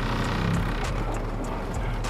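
Honda K20A2 2.0-litre inline-four engine in a Civic running steadily at a low, even speed.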